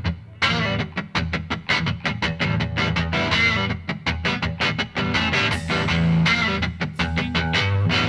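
Background music: a rock track with a fast, rhythmic picked electric guitar.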